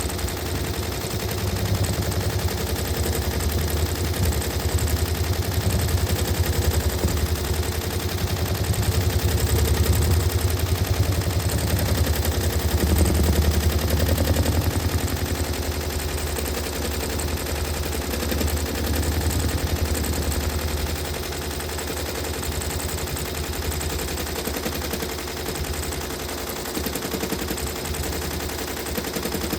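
Sewing machine stitching at a steady speed: a fast, even needle clatter over a low motor hum, a little louder in the middle and quieter near the end.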